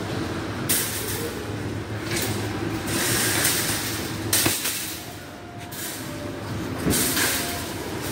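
Metal shopping carts rattling as they are handled and one is pulled out of a nested row: several short bursts of noise over a steady low hum.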